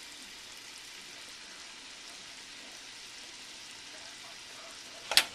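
Ham sizzling in a frying pan, a steady hiss, with a sharp clack near the end.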